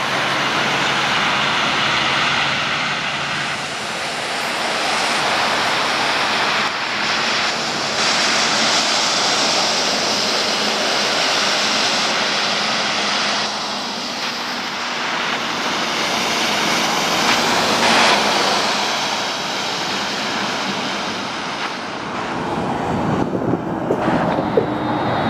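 Heavy trucks passing one after another on a rain-soaked road: a steady hiss of tyres on wet asphalt over the low hum of diesel engines, rising and falling as each goes by.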